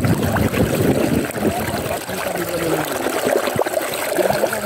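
Water splashing and sloshing around people moving about chest-deep in it, with small waves lapping close by. The churning is busiest in the first couple of seconds, then eases.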